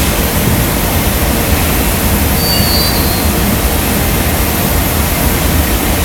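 Steady, loud roar of a glassworks hot shop: gas-fired furnaces and their blowers running.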